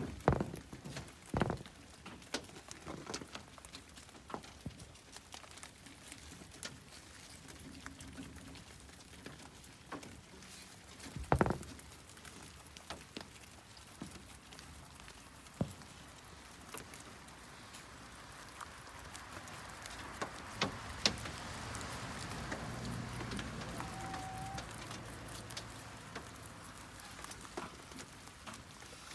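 Young rabbits munching leafy greens and shuffling on a wire cage floor: a steady patter of small crunching clicks, with a couple of louder knocks against the wire, one about a second and a half in and one near the middle.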